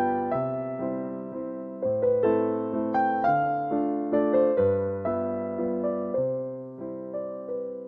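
Slow, gentle piano melody with soft bass notes, each note struck and left to fade.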